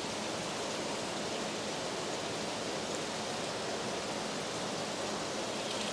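Steady, unbroken hiss of running water from aquarium filtration and water flow.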